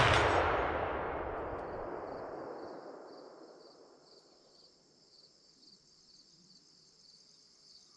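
The long rolling echo of a .50 calibre CVA inline muzzleloader shot, fading away over about three and a half seconds. Crickets chirp steadily throughout.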